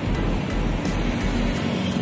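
A KRL electric commuter train running across a concrete overhead viaduct, heard from the street below along with city traffic noise.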